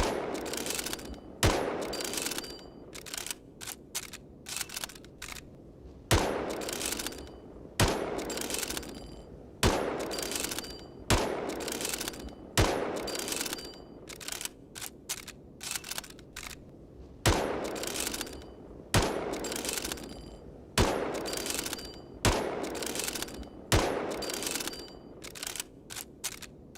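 Mosin-Nagant bolt-action rifle firing about eleven single shots, one every one and a half to five seconds, each with a short echoing tail. Between shots come runs of quick sharp clicks as the bolt is worked.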